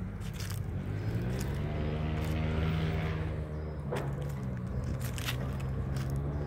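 A motor vehicle's engine hum swells past, its pitch rising slightly and then holding steady. Footsteps crunch now and then on dry fallen leaves.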